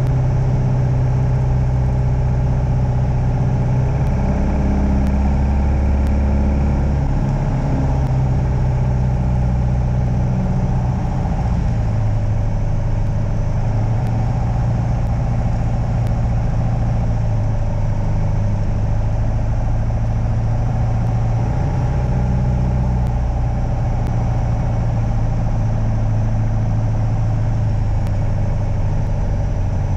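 Light aircraft's piston engine and propeller droning steadily, heard inside the cockpit, with the note settling slightly lower about eleven seconds in.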